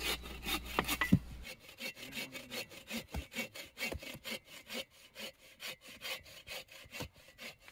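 Folding bow saw cutting through a log in steady, even back-and-forth strokes. A single sharp knock comes about a second in.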